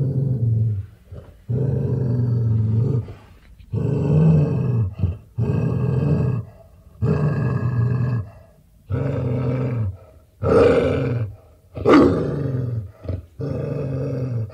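A hound dog growling in a series of low, rough growls, each about a second long, with short pauses between them. Two growls about two-thirds of the way through are louder.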